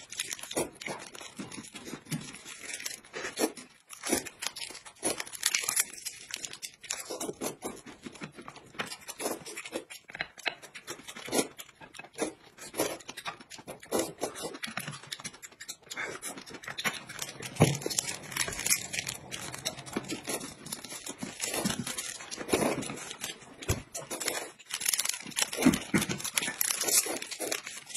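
Small plastic food packets being torn open and crinkled, in irregular crackly bursts, along with noodles being slurped and eaten from a bowl.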